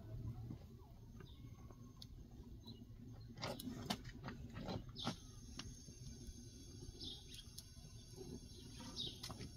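Wood fire burning quietly under an iron flatbread griddle, with a few sharp clicks about three to five seconds in. Short bird chirps come twice in the second half.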